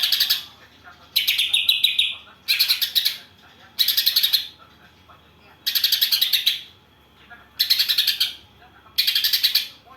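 Songbird singing in about seven short bursts of rapid, high chattering notes, each under a second long, one every second or so.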